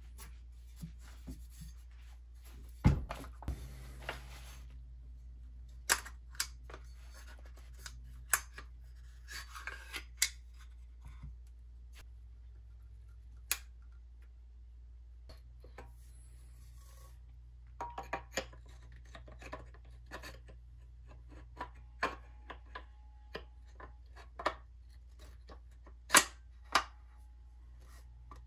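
Parts of an over-under 12-gauge shotgun being handled and fitted together: barrels, forend and receiver clicking and knocking against each other in scattered sharp clicks. The loudest come about three seconds in and twice in quick succession near the end.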